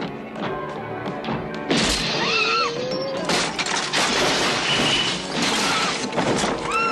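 Music playing, with a sudden loud crash about two seconds in, after which the sound thickens with repeated short rising-and-falling pitch glides.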